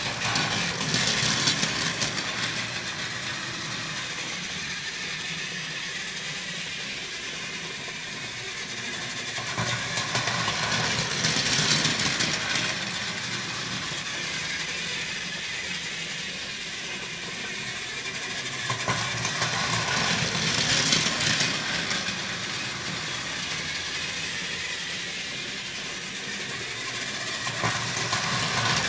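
Plarail E1 Series Shinkansen Max toy train running on plastic track: its small battery motor and gears whir steadily. The sound swells each time the train comes near on its loop, roughly every ten seconds.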